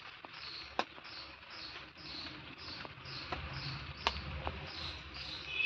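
A few small sharp clicks as a thin coconut-leaf midrib stick is worked through a stuffed pointed gourd to pin its cut top shut, with low rustling of handling. A faint high chirp repeats about twice a second behind it.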